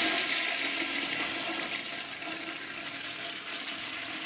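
A loud rushing hiss, like water or wind, that slowly fades, with a few faint steady tones beneath it.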